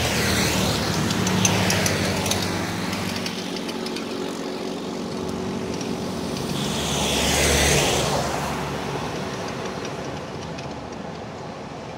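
Road traffic passing close by: a motorcycle goes past right at the start, its engine fading away over the first few seconds. A second vehicle passes about seven to eight seconds in, its engine and tyre noise swelling and then dying away, with lower distant traffic noise in between.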